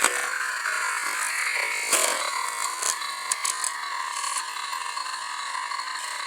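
Small electric motors and gearboxes of radio-controlled construction models whirring steadily, with a few sharp clicks or knocks in the first few seconds.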